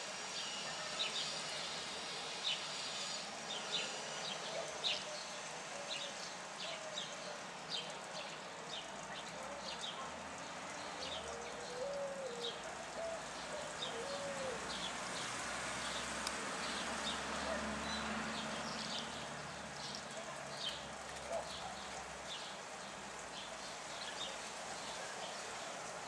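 Birds chirping, many short high chirps a few times a second over a steady background hiss, with a few lower, arched rising-and-falling notes about halfway through.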